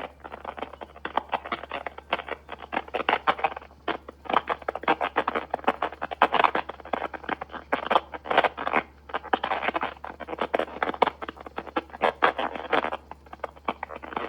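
Garbled, scratchy crackling over a Facebook Messenger voice call: a rapid, irregular stream of clicks and scratches, in bursts, over a steady low hum. It is the call's audio glitching, with the other person's voice lost in the noise.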